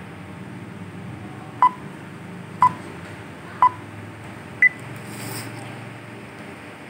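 Countdown timer beeps: three identical beeps a second apart, then a fourth higher beep that marks the start.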